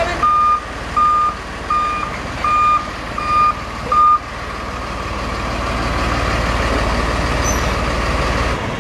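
Dump truck's reversing alarm beeping six times at an even pace as the truck backs up, then stopping about four seconds in. The truck's engine runs steadily underneath and on after the beeps, rising a little towards the end.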